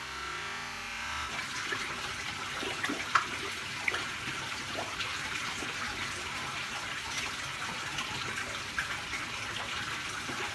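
Koi pond water splashing and trickling in a steady wash, with small sharp splashes at the surface, the clearest about three and four seconds in.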